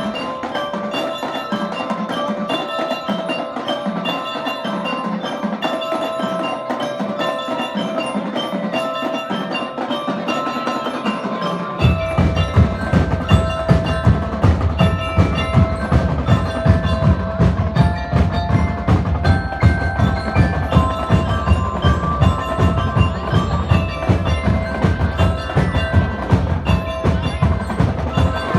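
Drum and lyre corps playing: bell lyres ring out a melody, and about twelve seconds in the drums join with a strong, steady beat under it.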